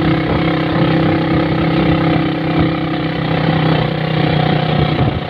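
A motor vehicle's engine running at a steady pitch, close and loud.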